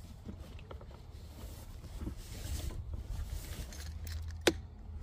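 Premixed two-stroke fuel trickling from a plastic gas can's spout into a Ryobi string trimmer's small plastic fuel tank as it is topped up. A single sharp click about four and a half seconds in.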